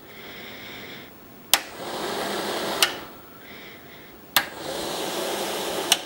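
A 12-volt RV roof vent fan motor and blades run in two short spells, each begun and ended by a click of its forward/reverse switch. One click starts it about a second and a half in and another stops it near three seconds. It clicks on again at about four and a half seconds and off near the end.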